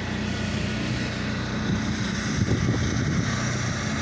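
Gas engine of a pressure washer running steadily with a low, even hum.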